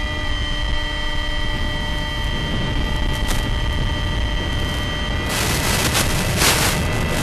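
Mini Talon FPV plane in flight, heard through its onboard analog video link: a steady drone with a high whine over a heavy wind rumble. About five seconds in, a loud static hiss comes in as the analog video signal breaks up.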